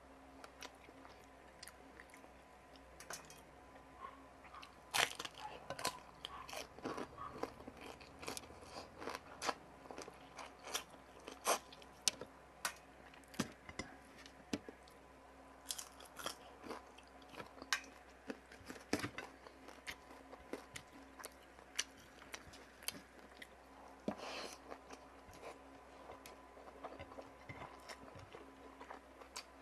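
Close-miked eating: a person chewing and crunching fried round scad (galunggong) and adobo water spinach, with many crisp, irregular bites and mouth clicks.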